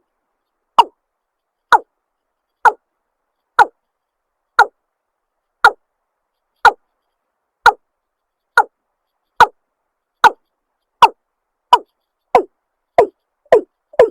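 Watercock (cúm núm) calling: a short, falling note repeated about once a second, coming faster toward the end.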